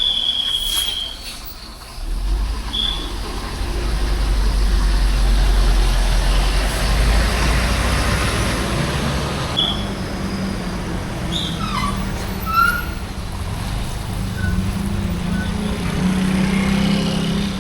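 Large tour bus's diesel engine running as it moves through the terminal: a deep low rumble that comes in about two seconds in and eases off after about eight seconds, then a steadier, lighter engine note. Several short high chirps sound over it, one at the very start and others scattered later.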